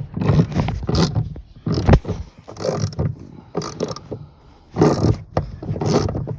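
Ratchet wrench clicking in irregular bursts as a socket works a seat mounting bolt loose, with short pauses between strokes.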